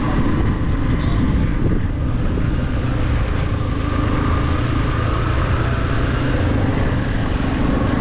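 Motorcycle running at a steady riding speed, a continuous low rumble with a faint steady whine above it.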